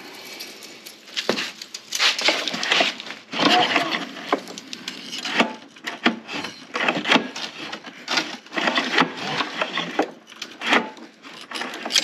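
Feeler gauge and wrench working at the exhaust valve rocker of a Honda EU3000i generator engine: irregular metal clicks, taps and scraping as the exhaust valve lash, which was a little tight, is reset.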